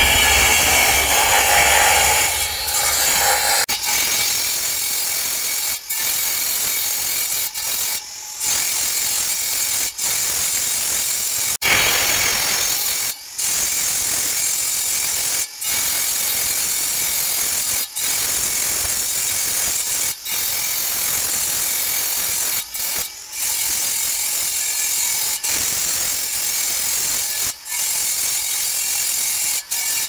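Electric angle grinder's cutting disc cutting into black stone, a steady high grinding whine broken by short dips about every two seconds as the disc is lifted from one slot and set into the next. It is louder and fuller for the first few seconds.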